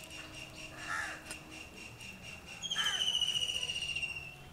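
Crows cawing, once about a second in and again near three seconds in. From the second caw on, an insect's high, rapidly pulsing trill carries on steadily.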